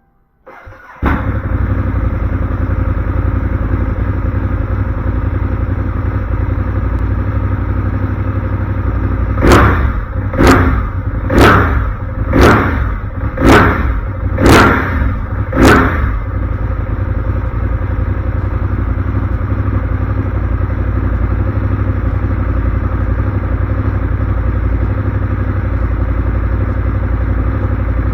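Ducati Monster 821's 821 cc L-twin engine, breathing through a Termignoni aftermarket silencer, starting and catching about a second in, then idling. About ten seconds in it is revved seven times, roughly one blip a second, then settles back to idle.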